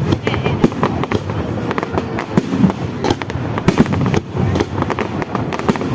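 Fireworks display: a dense, continuous run of bangs and crackles from shells bursting, several a second.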